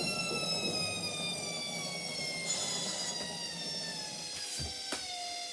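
Washing machine drum spinning down at the end of the spin cycle: the motor whine falls steadily in pitch as the rumble dies away. Two short knocks come near the end.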